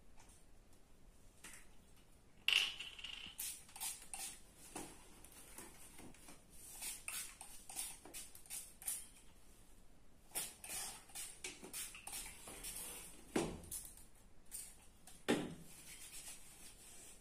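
Pump spray bottle spritzing a cardboard parcel box over and over in short sharp hisses while the box is turned in the hand. Two low knocks come near the end, then hands rub together.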